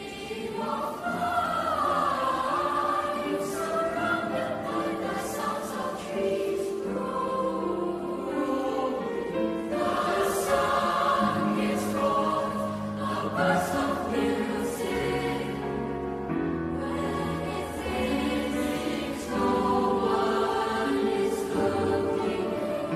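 Mixed secondary-school choir, girls' and boys' voices, singing together in a reverberant concert hall.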